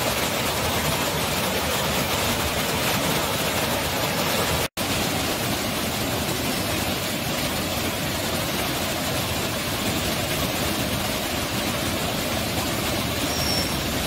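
Rushing water of a monsoon-swollen seasonal stream or waterfall: a dense, even, steady noise. It cuts out for an instant about five seconds in.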